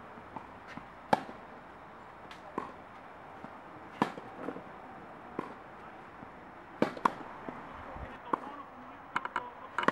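Tennis rally: sharp pops of racket strings hitting the ball and of the ball bouncing on the court, spaced a second or two apart, with a quicker run of lighter clicks near the end.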